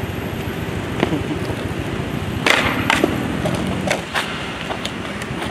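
Skateboard knocking and clacking on a concrete path in a few separate hits, the loudest about two and a half seconds in, over a steady background hum.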